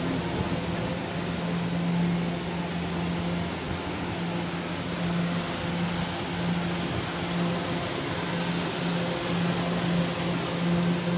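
Steady hum of an R211 subway train standing with its doors open, its air-conditioning and onboard equipment running: a constant low tone that swells and dips slightly, over a steady rushing noise.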